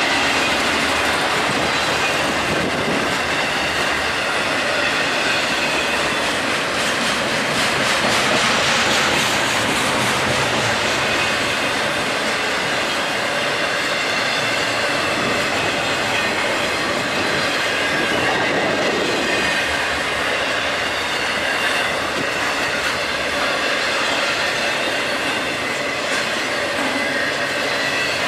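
BNSF intermodal Z train of highway trailers on flatcars rolling past at track speed: the steady noise of steel wheels on rail, with a faint high-pitched ringing held throughout.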